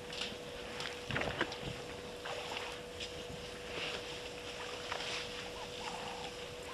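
Elephants at a waterhole: water splashing and sloshing with scattered knocks, over a steady faint hum. A few short chirps come near the end.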